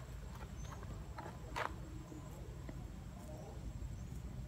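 Faint outdoor ambience: a steady low rumble with scattered small clicks, and one short sharp squeak-like sound about one and a half seconds in.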